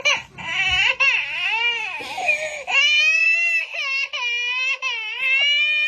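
Baby crying in a long, wavering, high-pitched wail, with a short break a little under three seconds in.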